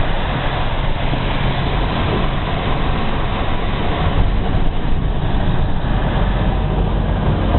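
Steady rush of wind and road noise from a truck driving along, heard from inside the cab with the side window open.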